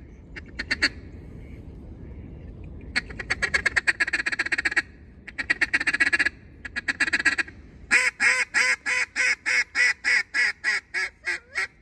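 Echo Breaker mallard duck call blown hard and close: a few quick chattering runs of rapid quacks, then about eight seconds in a long hail call of about a dozen evenly spaced quacks that fade toward the end.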